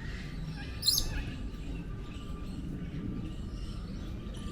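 A single short, shrill bird chirp about a second in, over a steady low background rumble and a faint thin steady tone.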